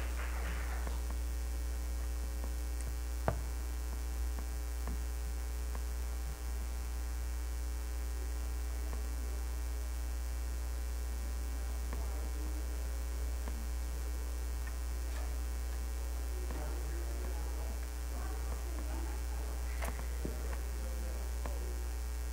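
Steady low electrical mains hum in the audio feed, with the last guitar notes of the hymn fading out in the first second, a single click about three seconds in, and faint indistinct sounds near the end.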